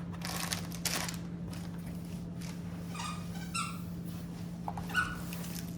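Crinkly rustling of a rolled diamond-painting canvas being unrolled, then a few short high squeaks, the loudest near the end, over a steady low hum.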